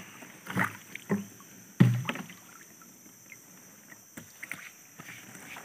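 Water splashing and sloshing against a small boat as a fishing net is hauled in over the side, in a few separate bursts. The loudest is a sharp thump about two seconds in, then fainter drips and knocks.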